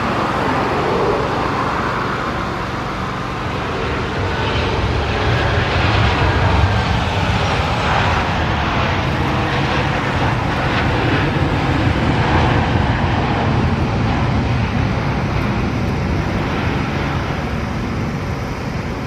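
Jet airliner engines: a loud, steady rumble with a faint whine that drifts in pitch.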